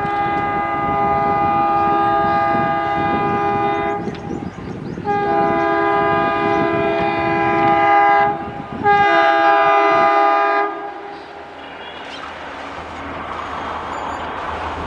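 Diesel locomotive's air horn, an ALCo WDM-3D, sounding a chord in three long blasts over the clatter of a train running through a station at speed. The first blast is already sounding as the clip begins; a brief break near the middle separates the last two. After that the horn stops and the wheels rattling over the track carry on, fading.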